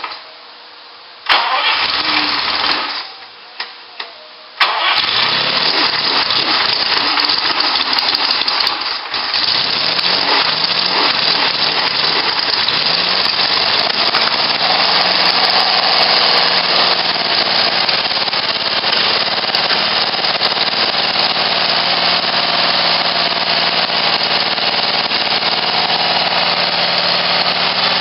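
1968 Lamborghini Miura's V12 with four triple-choke carburettors being started on its first run after more than 25 years in storage. A first try about a second in dies after a second and a half; the engine then catches about four and a half seconds in. The revs rise and fall for several seconds, then settle into steady running on all twelve cylinders, with the carburettors only roughly set up.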